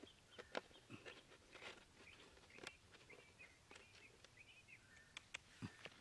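Near silence with faint bird chirps from around 3 to 4.5 seconds in. A scattering of light clicks and scrapes come from hands settling a cut plastic bottle into a hole in sandy soil.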